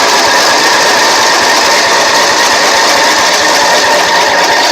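Electric starter cranking the MTD riding mower's engine on choke with starting fluid, a loud, steady, fast mechanical clatter with a whine, without the engine catching.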